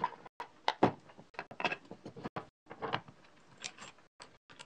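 Irregular light clicks and knocks of wooden jig parts and small metal hardware being handled and set in place on a table, about a dozen separate taps.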